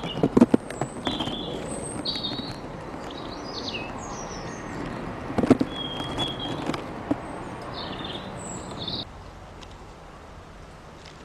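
Small garden birds chirping and twittering in short, high notes, with a few sharp knocks among them.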